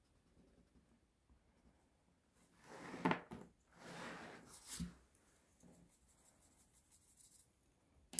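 Rustling and handling noises with two louder stretches starting a couple of seconds in and a dull knock, then faint scratching of drawing strokes and a sharp click at the end.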